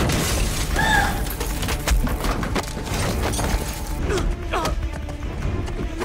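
Soundtrack of a TV fight scene: a music score under a string of sharp hits and thuds.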